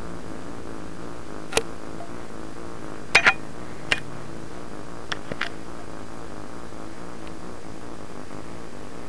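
A few sharp clicks and taps from a grooming brush as a cat plays with it: one about a second and a half in, a close pair near three seconds, and a few more around four and five seconds. A steady low background runs underneath.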